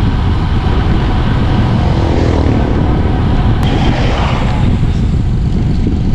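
Wind buffeting the camera microphone as a bicycle descends at speed: a loud, steady low rumble, with a single sharp click about three and a half seconds in.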